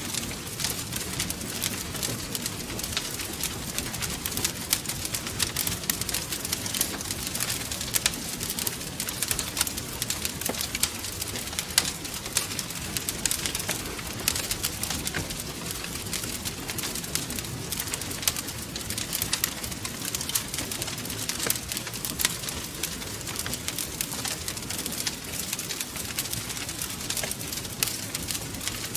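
Wood fire crackling steadily, with dense irregular pops and snaps over a low, steady rumble of the burning logs.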